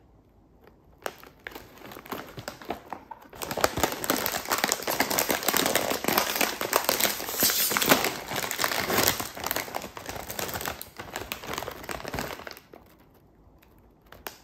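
Foil potato-chip bag crinkling as it is handled and pulled open: a few light crackles at first, then several seconds of dense, loud crinkling that stops shortly before the end.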